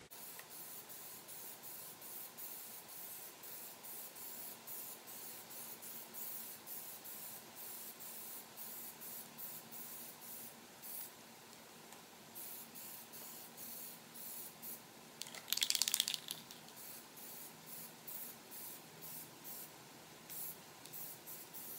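Aerosol can of Plasti Dip spraying in many short hisses, a few a second, as a light coat goes on, played at double speed. One louder, longer burst comes about fifteen seconds in.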